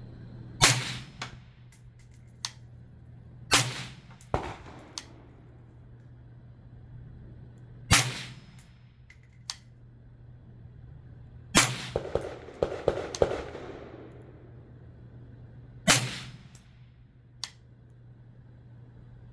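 Five single rifle shots from a 5.56 AR-pattern rifle, fired slowly about four seconds apart, each with a short ringing tail and a few fainter sharp clicks after it.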